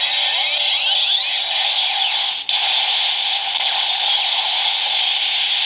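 Electronic finisher sound effect from a DX Ghost Driver toy belt with the Musashi Eyecon (Omega Drive): sweeping tones over a sustained rushing hiss, with a brief break about two and a half seconds in.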